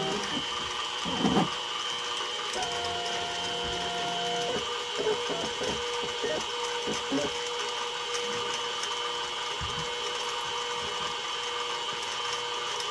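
CNC-converted mini mill: the spindle runs steadily with a constant whine, and the stepper motors give a short, even-pitched whine for about two seconds as the head is jogged over. A sharp clatter comes about a second in, and a few light clicks follow.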